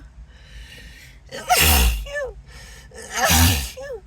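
A person sneezing twice, about a second and a half apart, each sneeze led in by a breathy, voiced intake of breath, during a sneezing fit from an irritated nose.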